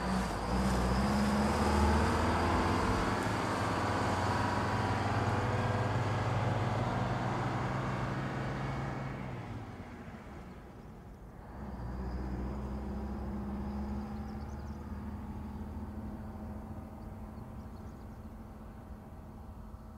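Vintage diesel bus engine running steadily, with a faint high whine above it. It breaks off about halfway, picks up again as the bus drives away, and fades out.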